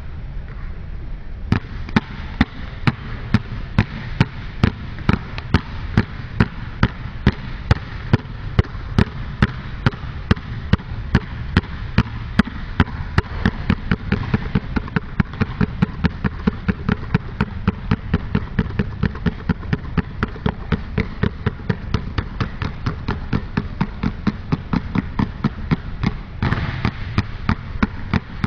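Two basketballs dribbled non-stop on a gym floor: a steady, even run of sharp bounces, about two to three a second, beginning about a second and a half in.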